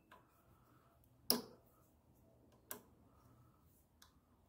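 A few sharp metallic clicks of a hex key working the cable clamp bolt on a brake caliper as it is loosened, the loudest about a second in and another near three seconds.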